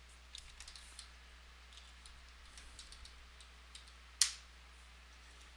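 Computer keyboard typing: a run of soft, quick keystrokes, then one louder, sharper key press about four seconds in. A faint steady low hum runs underneath.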